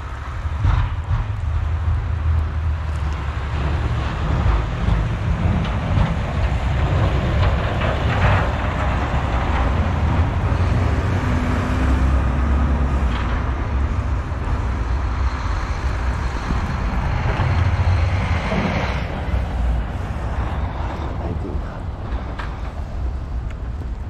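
Snowplow truck and other traffic passing on a snow-covered road, a steady heavy rumble with a broad hiss of tyres and blade on slush, swelling as the plow goes by.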